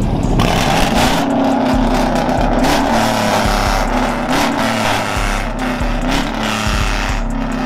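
Lifted GMC Sierra pickup on oversized tyres pulling away at low speed, its engine running with a low exhaust note that rises and falls a little.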